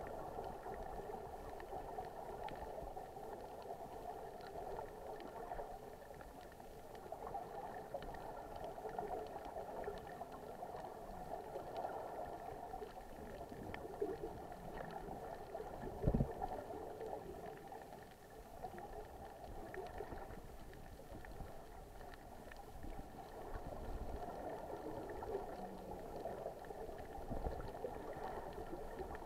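Underwater bubbling and gurgling of snuba divers' exhaled air streaming from their regulators, with one sharp thump about sixteen seconds in.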